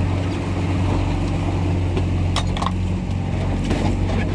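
Small boat's outboard motor running steadily under way, with water rushing against the hull in a heavy swell. A couple of short knocks come about two and a half seconds in.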